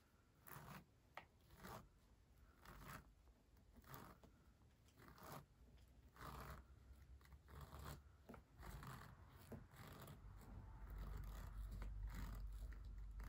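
Faint scraping and rustling of a steam iron sliding over quilted fabric as bias tape is pressed down, in short strokes about once a second, with a low rumble of handling building near the end.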